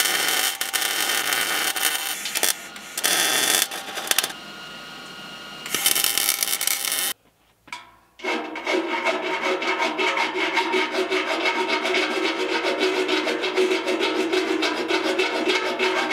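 MIG welding arc crackling in several runs of a couple of seconds each, with short breaks, as a doubler plate is welded onto a steel frame. After a brief silence about seven seconds in, a hand grinder runs steadily against the steel, grinding down the welds.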